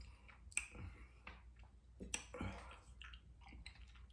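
Close-up mouth sounds of eating cocoyam fufu with achu soup: soft chewing with a few sharp wet smacks and clicks, one about half a second in and another about two seconds in.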